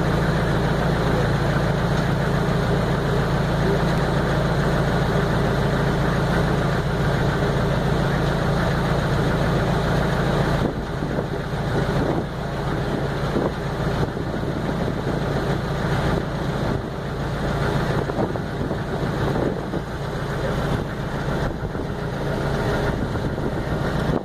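Small ferry boat's engine running with a steady low hum. About ten seconds in, the sound becomes slightly quieter and uneven.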